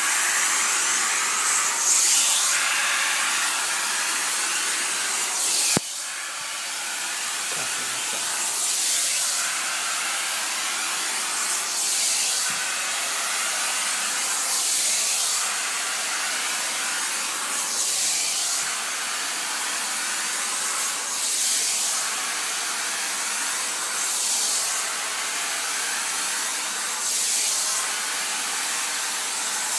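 Handheld garment steamer with a brush head hissing steadily as it is stroked over velvet to lift the flattened pile; the hiss swells about every three seconds. A sharp click about six seconds in, after which it runs a little quieter.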